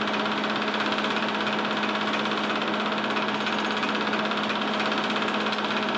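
Movie projector running steadily, a rapid even clatter over a constant low hum.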